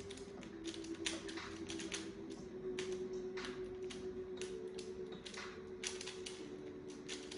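Plastic Rubik's-type puzzle cube being turned rapidly in speed-solving: a fast, irregular clatter of clicks as the layers snap round. A faint steady hum runs underneath.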